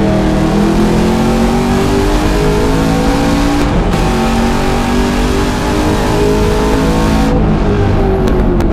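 Camaro's LS7 V8 engine pulling hard, heard from inside the car, its pitch rising under acceleration. There is a short break about three and a half seconds in. The pitch falls near the end as the car slows.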